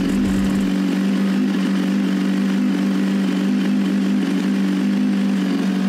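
BMW S1000RR's inline-four engine idling steadily.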